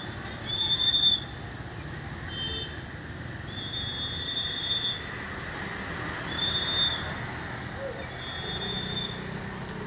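Road traffic with a run of five short, shrill toots at one high pitch; the first is the loudest and the middle one lasts about a second and a half.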